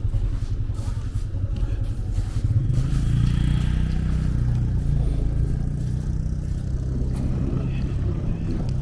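Street traffic: a motor vehicle's engine running close by, a low rumble that grows stronger about three seconds in.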